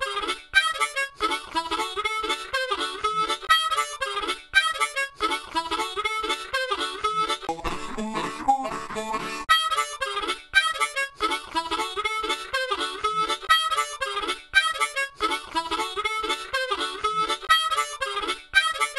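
Instrumental music with a steady rhythm and a bright lead melody.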